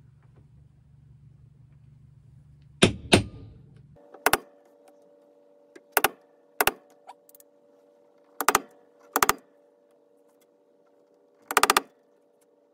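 Hammer striking a punch held against a vinyl-covered cabinet face to punch through the vinyl and start screw holes. The sharp metallic taps come one or two at a time, every second or two, with a cluster of quick taps near the end, over a steady background hum.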